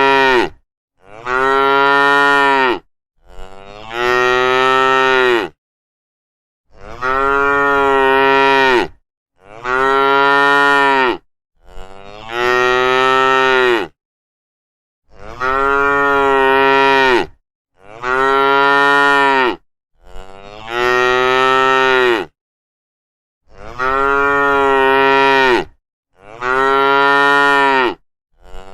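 Cows mooing: long moos of about two seconds each, loud and pitched, with dead silence between them. They come in identical sets of three, the same three moos repeated about every eight seconds, as from a looped recording.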